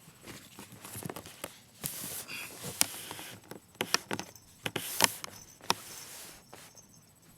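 Irregular taps, slaps and scuffs of a baby's hands and knees on the floor as she crawls, with a few sharper knocks.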